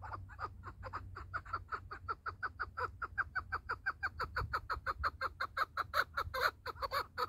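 Chukar partridge calling in a rapid run of short chuk notes, about seven a second, growing louder after about three seconds.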